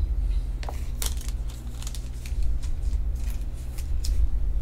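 Topps Chrome trading cards being handled and slid against one another, making scattered light clicks and flicks over a steady low hum.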